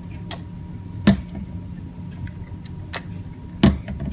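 A few sharp clicks and knocks of small objects being handled on a workbench, two louder knocks about a second in and near the end, over a low steady hum.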